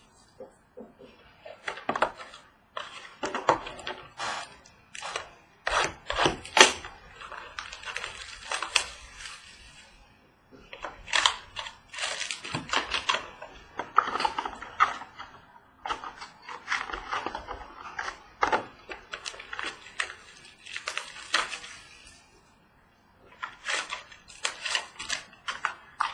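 Trading-card boxes and sealed packs being handled and opened: irregular taps, knocks and rustling of cardboard and wrapper, with a couple of short pauses.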